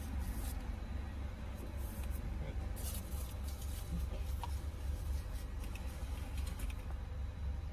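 Steady low rumble inside a car's cabin with the engine idling, with scattered light clicks and rustling from things being handled.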